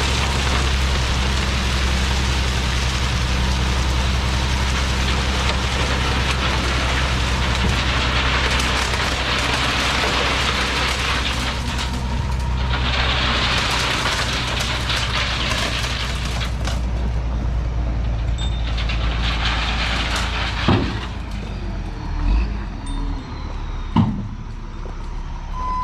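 Dump truck engine running steadily under load while gravel spreads out of the bed with a loud rushing hiss. The rush fades out about two thirds of the way through, leaving the engine and a few knocks near the end.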